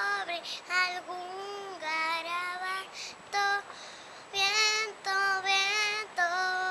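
A young girl singing on her own in short phrases of held notes, with brief pauses between lines.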